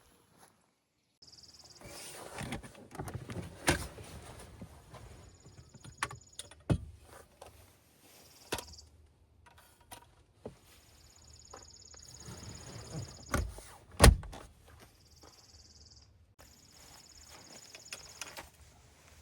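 Irregular knocks, clunks and thuds of things being handled, the loudest a sharp thump about 14 seconds in.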